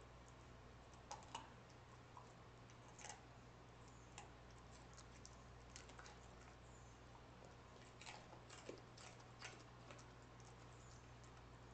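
Cardigan Welsh corgi chewing a piece of broccoli: faint, irregular crunches and clicks, with a cluster about a second in and another about eight to ten seconds in, over a low steady hum.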